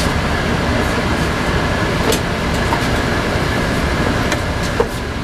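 Interior of a LiAZ 5292.22 diesel city bus under way: steady engine and road rumble, with a few light rattles and clicks from the cabin fittings, the sharpest near the end.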